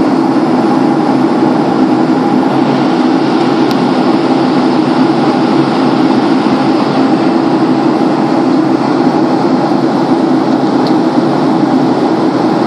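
Steady cabin noise of a jet airliner in cruise, engines and rushing airflow heard from inside the cabin: an even, unchanging low rumble.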